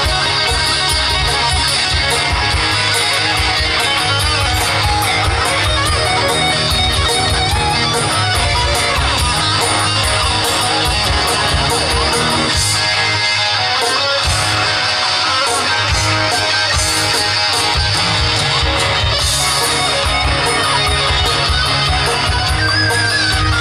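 Live rockabilly band playing, led by electric guitar over bass with a steady beat. The low end drops out for a few seconds about halfway.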